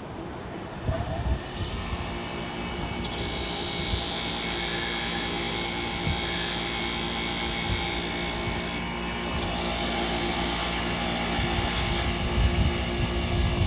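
An old Snap-on grinder starting up about a second and a half in, then running steadily with an even motor whine.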